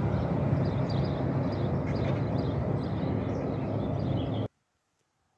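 Outdoor roadside ambience: birds chirping over a steady low rumble, which cuts off abruptly about four and a half seconds in.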